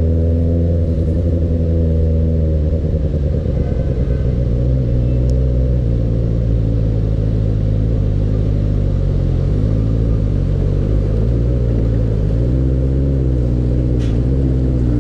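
Benelli 600 GT motorcycle's inline-four engine running steadily under way. Its pitch dips and rises a little a few times with the throttle.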